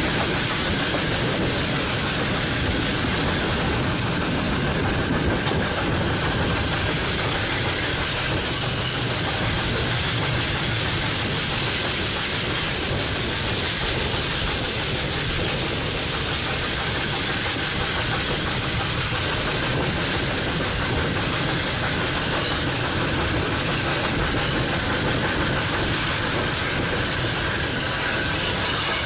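Steam-hauled train behind a Hunslet Austerity saddle-tank locomotive running steadily along the line, a constant rumble of wheels on track with a hiss, heard from an open carriage window.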